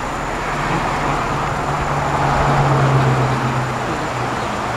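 Road traffic passing on a city street, with one vehicle's low engine drone growing louder about two seconds in and fading away near the end.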